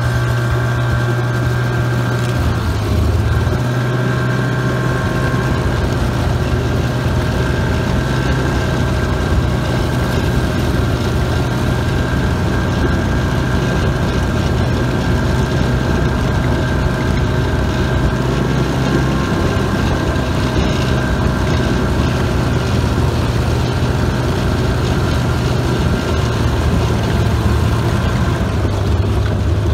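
Ski-Doo Tundra Extreme snowmobile running steadily under way, heard from on the machine: a loud, constant engine drone whose pitch shifts slightly a few times.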